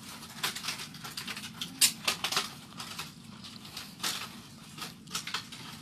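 Light rustling and clicking of egg trays and plastic bags being handled while relief packs are made up, a quick run of small clicks with one sharper click about two seconds in.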